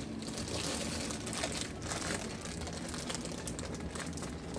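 Crinkling of a plastic Happy Meal toy packet as it is worked open: an irregular crackle of many small clicks, busiest in the first two seconds.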